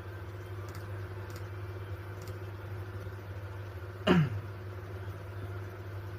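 Steady low electrical hum with a few faint clicks, and a single short sound sliding down in pitch about four seconds in.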